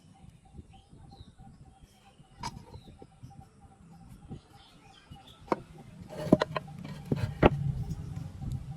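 Irregular sharp knocks and taps of woodworking, with a cluster of the loudest strikes from about six to seven and a half seconds in. Faint bird chirps sound in the background.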